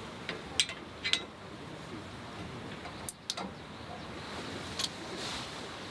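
A few sharp clicks and taps over a steady background hiss.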